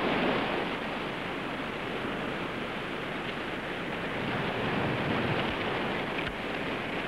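Wind and surf by the sea: a steady rushing noise that swells slightly near the start and again about five seconds in.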